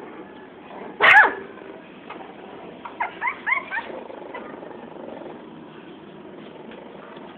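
Puppies at play: one sharp yelp about a second in, falling in pitch, then a quick run of about four short high yips around three seconds in.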